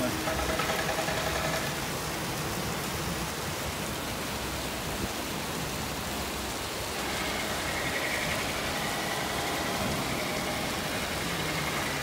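Steady hiss of rain and wind high on an open bell tower. A faint machine hum joins in from about seven seconds in.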